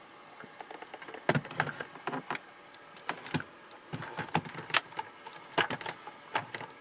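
Irregular clicks and light knocks of a Realistic Portavision portable TV's plastic case being handled and turned around.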